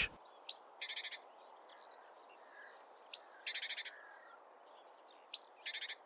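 A bird calling three times, about two and a half seconds apart: each call is a thin, very high falling note followed by a short, dry rattling chatter. A faint steady outdoor hiss lies underneath.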